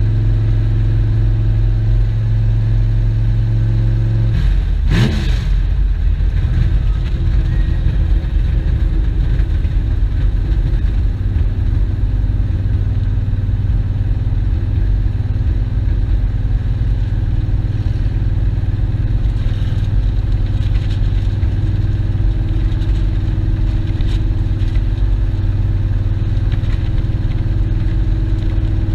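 Car engine running steadily at cruising speed, heard from inside the car, with low road rumble. About five seconds in there is a brief click and a quick change in the engine's note, after which it runs steadily again.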